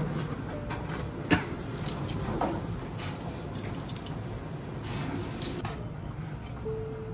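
Metal tongs working binchotan charcoal in a yakitori grill: scattered clinks and scrapes, with one sharp knock about a second in.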